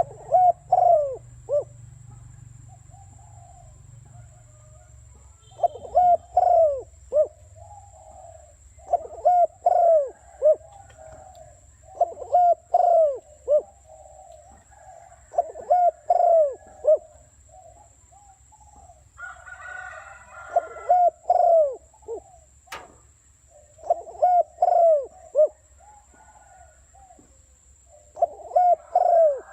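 Spotted dove (cu gáy) cooing: a decoy bird repeats its short phrase of several falling coo notes about every three to four seconds, to provoke wild doves. A single sharp click falls about two-thirds of the way through.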